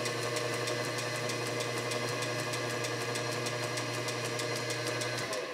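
Metal lathe's electric motor and flat-belt drive running at high speed on a 3D-printed TPU belt: a steady hum with a regular ticking about five or six times a second. The hum cuts out near the end as the motor is switched off and the spindle starts to coast down.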